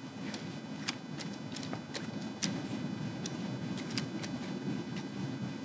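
Scattered light metallic clicks and taps as brass gas lens parts are handled and threaded onto a TIG torch head, over a steady low room hum.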